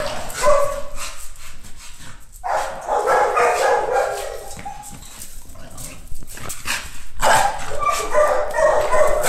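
Young female American Bully pocket barking repeatedly while straining on a leash during protection-dog training. The barks come in three runs, with quieter pauses between them.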